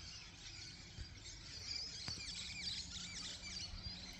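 Small birds chirping faintly in the background: a busy run of short, high chirps through the middle, with a faint steady low hum coming in about halfway.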